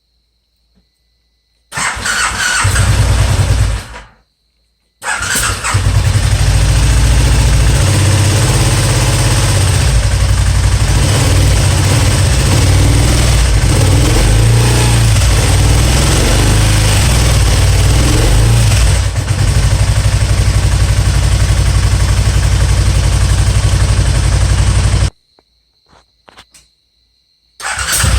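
Spyder's engine starting, running about two seconds and stopping, then starting again and running steadily for about twenty seconds before cutting off. A third start comes near the end. The engine is misfiring.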